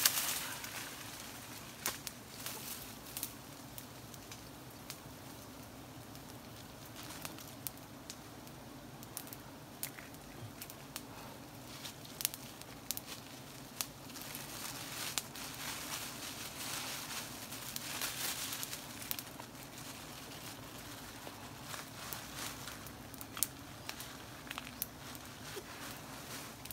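Wild honeycomb being cut and handled in a tree: scattered snaps, crackles and rustles of leaves and twigs, with a faint steady hum of bees flying around.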